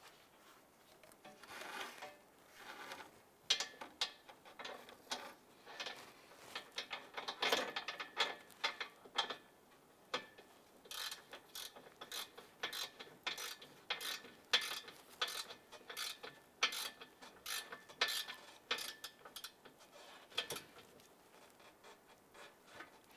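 Socket ratchet clicking in short runs of strokes as the nut on the lower A/C line fitting at the condenser is snugged down.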